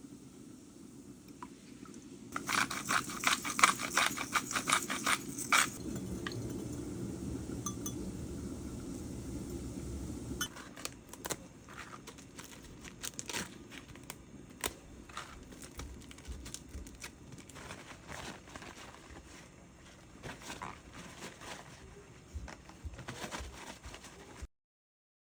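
Things being handled: a quick run of clicks and scrapes about two seconds in, then scattered clinks and taps. A low steady hum lies under the first ten seconds or so and then stops.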